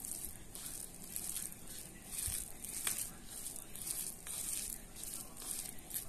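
Bare hand squeezing and mashing cooked rice with boiled potato in a plastic bowl: soft, wet squishing about two to three times a second.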